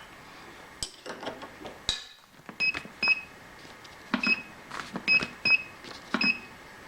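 Roughly ten light metallic taps and clinks at irregular intervals, most with a brief ring at the same pitch each time: steel parts or tools knocking against metal in a machine shop.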